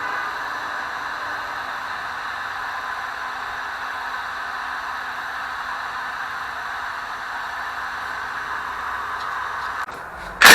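Steady hiss of a heating tool warming the corner intake bolts and head, to free bolts seized by corrosion. It stops just before the end, where a loud burst from a power tool begins.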